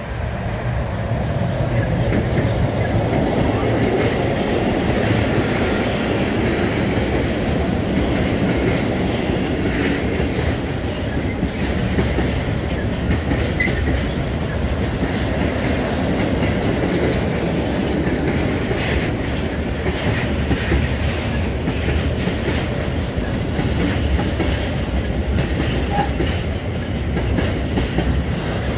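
Freight train of tank wagons, hauled by an electric locomotive, rolling past at close range: a steady loud rumble of steel wheels on rail with repeated clicking as the wheels cross rail joints.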